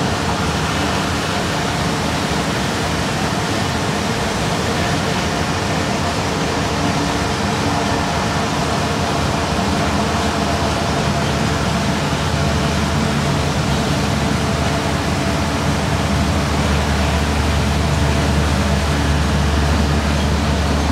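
Parking lot tram running, heard from aboard an open-air trailer car: a steady mix of engine hum and rolling road noise. The low hum grows somewhat louder in the last few seconds.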